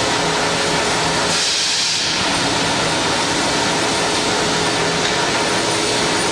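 Steady din of running machine-shop machinery in a gun factory, with faint steady hums under it. About a second and a half in, a brief hiss rises over it.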